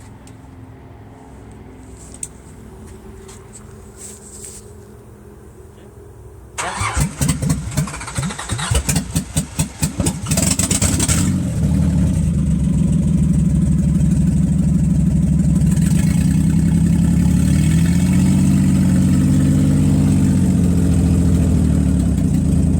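Nissan 300ZX Z31's V6 turned over on the starter for several seconds after a rebuild of its fuel injectors and fuel rail, catching about eleven seconds in and then running steadily at idle, its speed rising and falling for a few seconds near the end.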